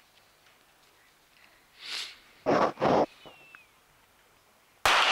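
A breathy hiss, then two short, loud noisy bursts about a third of a second apart. Near the end comes a single sharp shot from a .22 rapid-fire pistol, the first shot of a timed five-shot series.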